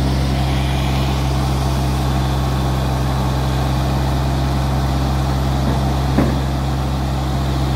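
John Deere 35D mini excavator's diesel engine running steadily, holding a load on its arm. A single short knock sounds about six seconds in.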